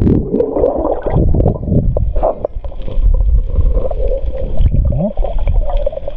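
Muffled underwater rumble and bubbling picked up by a submerged action camera as a freediver rises, breathing out streams of bubbles.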